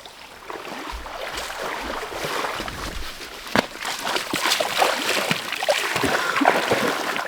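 Stream water splashing and sloshing, with many short sharp splashes over a steady rush, as a hooked brook trout thrashes during the fight. It builds up about half a second in and grows louder toward the end.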